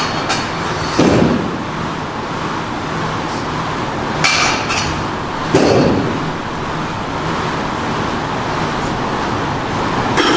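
Air bike's fan whooshing steadily as it is pedalled, with a few knocks and clinks.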